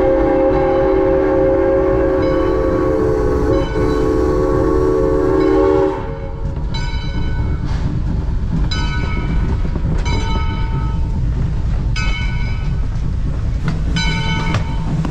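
The whistle of a 1928 Lima Shay geared steam locomotive is held as a chord of several tones for about six seconds and then cuts off. After that the locomotive's bell rings about once a second over a low rumble.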